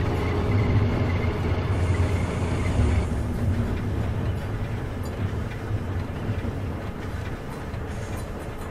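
Low, steady mechanical rumble like a running engine, with a thin steady whine that stops about three seconds in.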